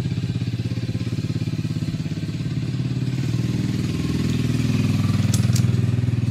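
An engine idling steadily with an even, fast pulsing beat, getting a little louder a few seconds in. Two light clicks come about five seconds in.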